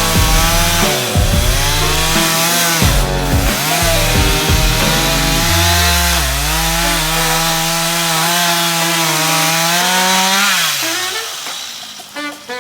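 Two-stroke chainsaw cutting into a tree trunk on the back cut, its pitch repeatedly sagging under load and picking up again; about six seconds in it holds a steadier note, then winds down near the end. Background music plays underneath.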